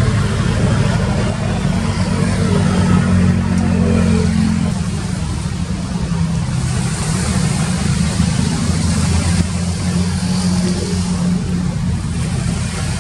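Ship's engine running with a steady low drone, its pitch shifting slightly about four and a half seconds in, over a constant hiss.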